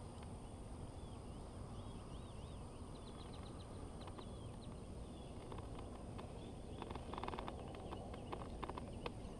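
Birds calling outdoors, short repeated rising-and-falling chirps over a steady low rumble. From about five and a half seconds in, a run of small sharp clicks and rustles joins in.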